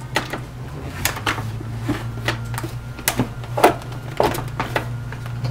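Two-battery replacement pack being pushed into the battery bay of an APC Back-UPS XS1000 UPS: a run of irregular plastic clicks and knocks as it slides in, over a steady low hum.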